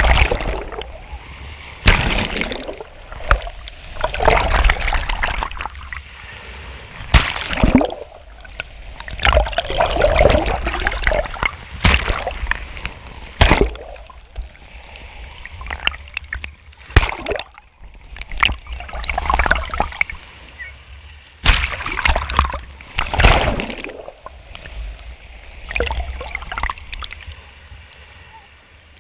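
Small sea waves breaking and surf sloshing and splashing right at the microphone, which sits at the waterline. Irregular surges come with several sharp slaps of water striking the camera. Near the end it drops to a quieter, muffled wash as the camera goes under the foam.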